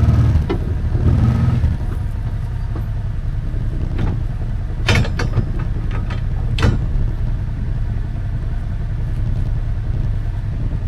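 An engine running steadily at low speed, a little rougher in the first couple of seconds, with two sharp clanks about five and nearly seven seconds in.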